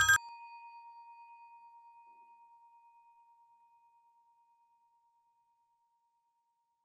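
A bell: rapid ringing cuts off a fraction of a second in, and one clear tone is left to fade away over about three seconds, pulsing slightly as it dies.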